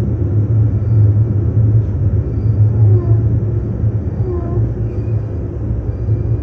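Steady low rumble and drone of a local train running, heard from inside the carriage.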